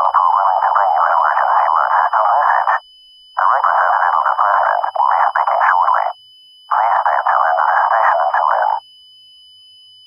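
Emergency Alert System header data bursts: three harsh, warbling digital bursts of about three seconds each, separated by short gaps. A faint, steady high-pitched tone sits underneath.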